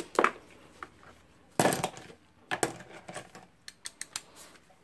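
Metal hand tools clinking and knocking on a wooden workbench as a T-handle socket wrench and the angle grinder are handled: a scatter of sharp clicks and taps, with a longer, louder scrape about a second and a half in.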